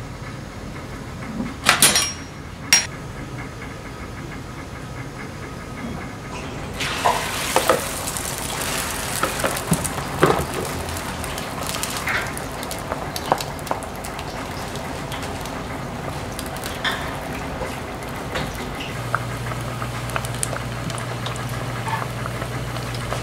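Two sharp metal knocks of utensils on a flat-top griddle, then food sizzling on the hot griddle from about seven seconds in, with scattered clicks of metal utensils. A low steady hum joins near the end.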